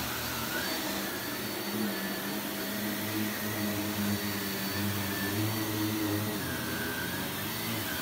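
Upright bagless vacuum cleaner running as it is pushed over a rug: a steady rush of air with a motor whine that wavers slightly up and down in pitch.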